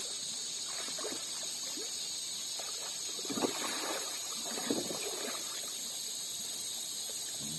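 Water trickling and splashing lightly at a river's edge, with a few louder splashes about three and a half and nearly five seconds in, over a steady high-pitched hum in the background.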